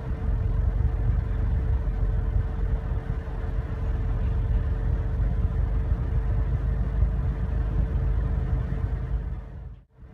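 Nissan Juke engine idling: a steady low rumble with a faint constant hum above it, cutting out briefly near the end.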